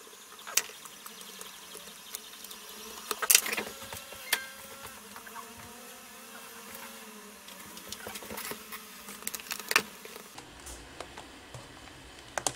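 Small clicks and taps of a 2.5-inch laptop hard drive and its plastic enclosure being handled and fitted together, the loudest a little over three seconds in, over a faint steady buzz.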